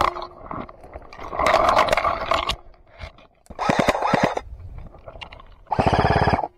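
Airsoft electric rifles firing full-auto in about three short bursts, each roughly a second long: a fast, even rattle of shots.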